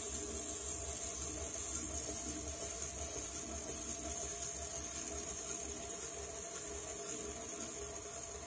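Buehler Isomet low speed saw running with a steady hum and whine as its diamond wafering blade slowly cuts through a fish otolith mounted in Crystalbond.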